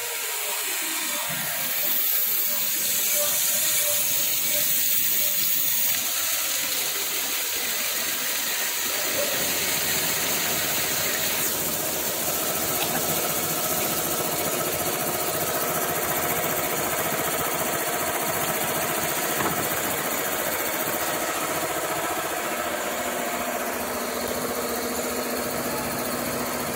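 Cylindrical grinding machine running, its grinding wheel grinding the spray-welded surface of a screw shaft while coolant pours over the work: a steady hiss of wheel and coolant over the hum of the machine.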